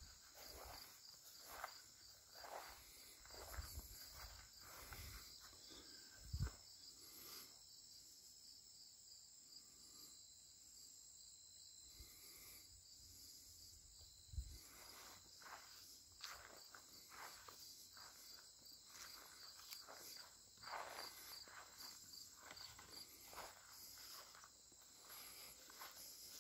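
Faint footsteps, about one step a second, that stop for several seconds midway and then start again, over a steady high chirping of insects.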